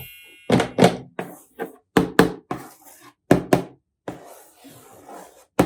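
Sharp knocks in pairs, three double knocks about a second and a half apart, followed by a softer rustling noise near the end.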